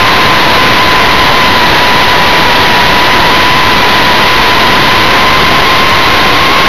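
Multiplex FunJet Ultra model jet in flight, recorded by its onboard camera: the pusher motor and propeller give a steady high whine with a fainter higher overtone, under a loud rush of wind noise on the camera's microphone.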